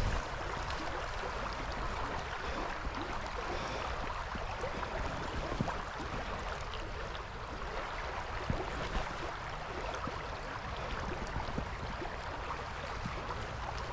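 Creek water running steadily, with a few small clicks now and then.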